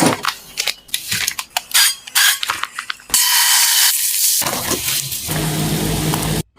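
Plastic food containers and packaging being handled, a rapid run of clicks and knocks. About three seconds in, a steady rushing noise takes over and stops abruptly near the end.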